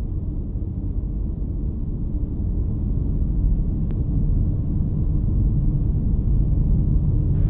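Deep, steady cinematic rumble sound effect, mostly low-pitched noise, growing slowly louder.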